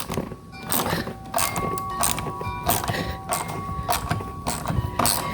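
Mechanical tool work on a garage door lock fitting: a run of short, sharp strokes, roughly one to two a second, over a faint steady whine.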